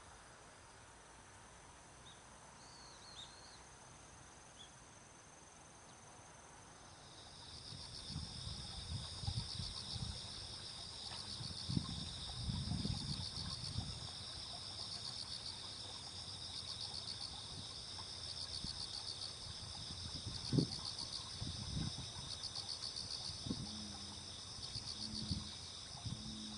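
Insects singing in the grass: a steady, fast-pulsing high trill that sets in about a quarter of the way through and carries on, over soft low rumbles and scattered thumps.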